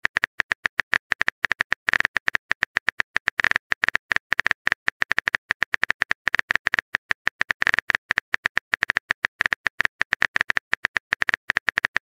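Simulated phone keyboard clicks from a texting-story app, a rapid, irregular run of short taps, one per letter as a message is typed.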